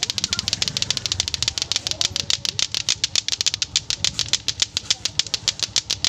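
Several latto-latto clacker toys being played at once: the pairs of hard plastic balls on strings knock together in a fast, unbroken clacking. The overlapping streams make many sharp clacks a second.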